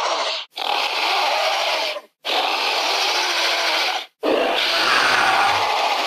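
Mattel Jurassic World dinosaur toy's recorded roar sound effect, played over and over. Rasping, growling roars about two seconds each, cut apart by brief silences.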